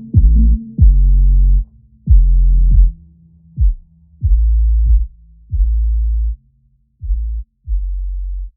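Electronic background music made of deep, loud bass-drum notes, each starting with a hit that drops in pitch and some held for up to a second, in an uneven pattern with gaps between them.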